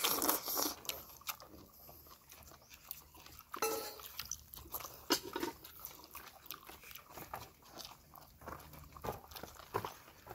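Close-up eating sounds: people chewing and biting food, with scattered short clicks of a spoon and fingers against plates.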